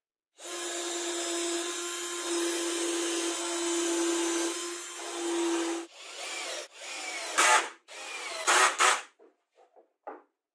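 Cordless drill-driver driving a screw into plywood, its motor running steadily for about five seconds, then several short, louder bursts as the screw is driven home. A few faint small knocks follow near the end.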